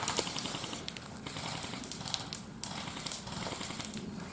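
An airsoft gun firing a rapid burst at the very start, then a few scattered sharp clicks over rustling of movement.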